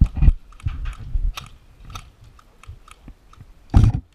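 Irregular crunches and sharp clicks close to the microphone, with one loud thump near the end.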